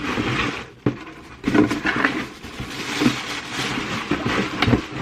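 Rustling and handling of packaging while rummaging in a cardboard subscription box, with a couple of sharp knocks.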